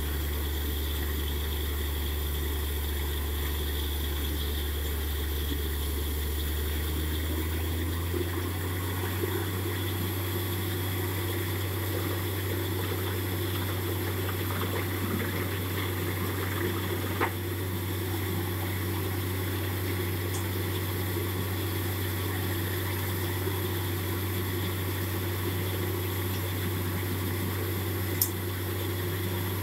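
Borewell drilling rig's engine running steadily, its hum stepping up in pitch about seven seconds in, with muddy water gushing and splashing up out of the borehole around the drill pipe, a sign that the bore has struck water. Two brief sharp clicks come in the second half.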